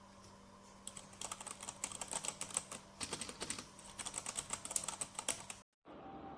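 Typing on a mechanical keyboard fitted with ABS keycaps: fast runs of plastic key clicks that start about a second in, pause briefly midway, and stop shortly before the end.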